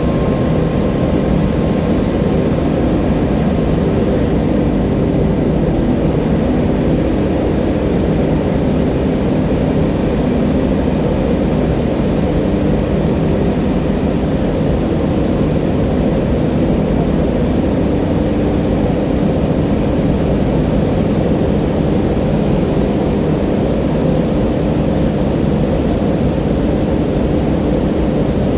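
Rushing water running steadily and loudly, a deep, even roar without breaks or single splashes.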